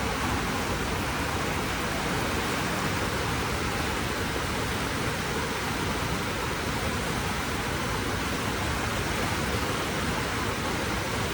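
Waterfall's falling water, a steady, even rush with no change in level.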